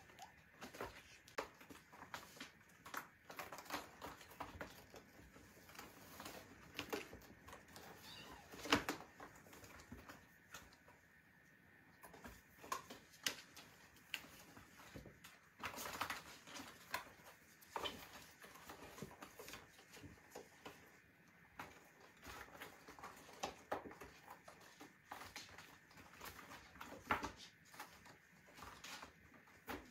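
Kittens scrambling over a corrugated cardboard scratcher ramp and the carpet, their paws and claws making faint, irregular scratches, taps and bumps, with a sharper knock about nine seconds in.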